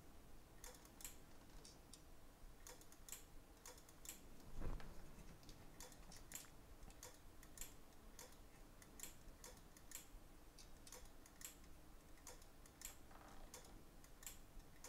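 Faint, irregular light clicks, about one or two a second, over quiet room tone, with a soft thump about four and a half seconds in.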